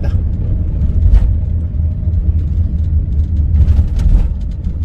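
Steady low road and engine rumble heard from inside the cabin of a Hyundai Starex camper van driving slowly.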